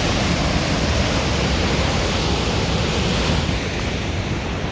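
Rushing whitewater of a river through a narrow canyon: a loud, steady rush of water, a little duller near the end.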